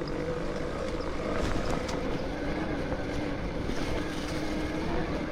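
Bafang BBSHD mid-drive e-bike motor whining steadily under power on 72 volts, its pitch shifting a little with speed, over a constant rush of wind and tyre noise from riding.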